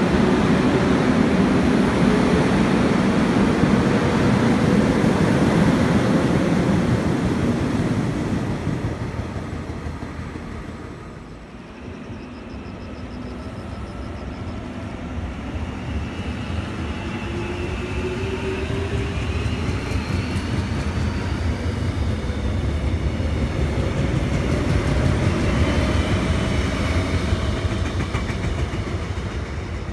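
Korail Class 361000 electric multiple unit pulling away, its traction motors giving a whine that rises in pitch as it gathers speed, over the rumble of the wheels on the rails. The sound fades about a third of the way in, then a second whine rises again as the train passes close by.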